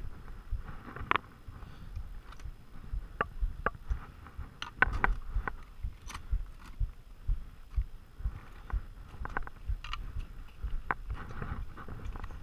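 Steel crampon points clacking and scraping on granite as a climber scrambles over rock, in irregular sharp clicks, with dull bumps underneath.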